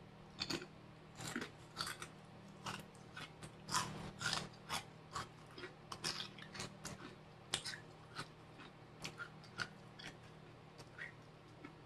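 A person chewing crunchy corn snack chips with the mouth close to the microphone: irregular crunches, a few a second, some louder than others.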